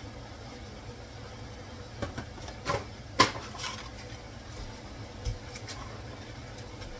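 A few short clicks and knocks of kitchen handling, the loudest about three seconds in, over a steady low hum.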